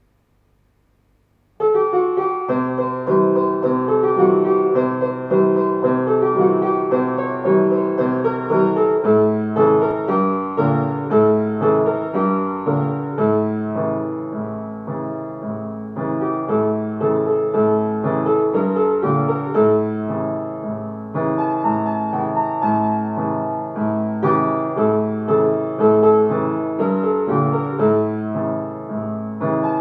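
Solo upright piano playing a song melody over a steadily repeating accompaniment of chords. The playing starts after about a second and a half of silence.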